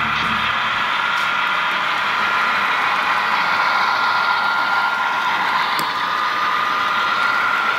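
HO scale model trains running past on the layout: a steady whirr of electric motors and metal wheels on rail, with a steady high whine throughout.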